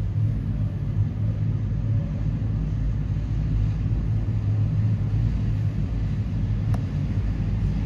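Steady low drone of a de Havilland Canada Dash 8-100's turboprop engines and propellers, heard from inside the passenger cabin.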